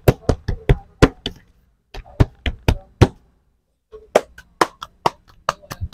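Aloo naan dough being slapped and patted between a cook's palms to shape it, in quick runs of sharp slaps about four a second with a short break partway through.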